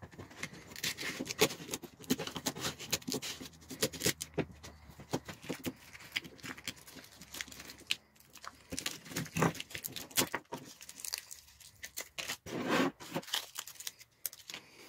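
Clear plastic blister packaging crinkling and tearing as a set of clutch weights with springs is worked out of it by hand. Through it come irregular clicks and light jingling from the small metal weights and springs.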